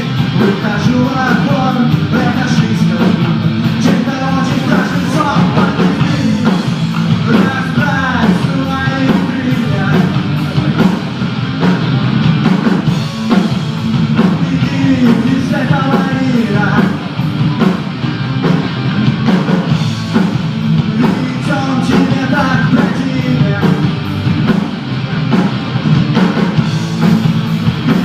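Rock song playing loud and continuous, with a singer's voice over the band.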